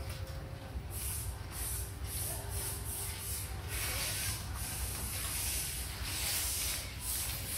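A mother dog and her puppies lapping and slurping watery rice food from a metal bowl: quick wet slurps about two a second, running together into a near-continuous slurping from about four seconds in, over a low rumble.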